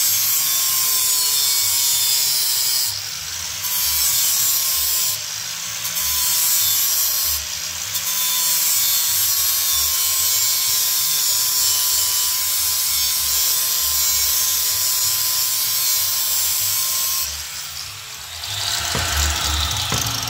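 Corded angle grinder running and grinding into a steel bumper bracket, throwing sparks, to take material out so it lines up. A steady high whine with short dips a few times as it eases off the work, stopping near the end.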